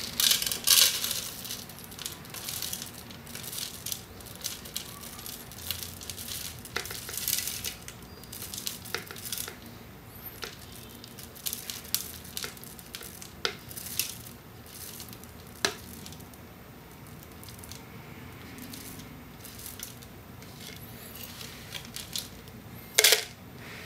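Metal spoon scooping and stirring dry rolled oats in a bowl: the flakes rustle and the spoon clicks and scrapes against the bowl in scattered short bursts. The sounds are loudest in a cluster right at the start and in one sharp burst near the end.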